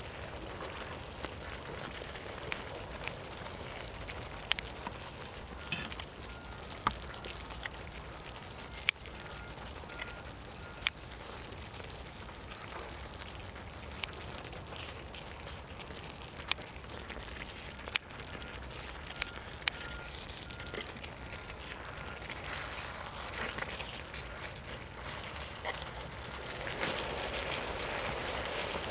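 Marinated beef short ribs (LA galbi) sizzling as they cook: a steady crackling hiss with scattered sharp pops of spitting fat, growing louder near the end.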